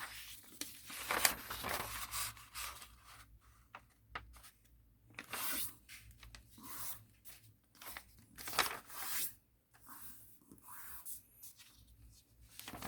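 A sheet of origami paper being handled, folded into a triangle and creased: irregular crisp rustles and short scraping strokes as the paper is slid, pressed and run flat along the fold.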